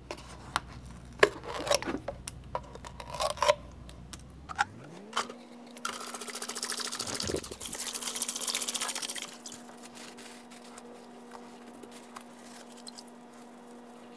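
Evapo-Rust rust remover poured from a plastic jug into a plastic bucket of rusty parts in a metal strainer basket, a splashing gush from about six to nine and a half seconds in. Before it come a few light clicks and taps as the jug's cap and seal are worked off.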